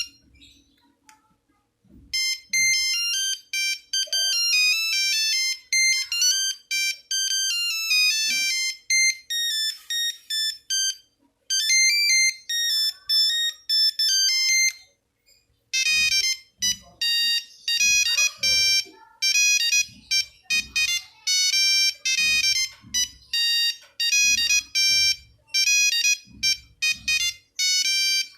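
Nokia 3310 monophonic ringtones: melodies of single beeping notes. One tune plays until about halfway, then stops; after a short pause, a second tune of shorter, choppier notes begins.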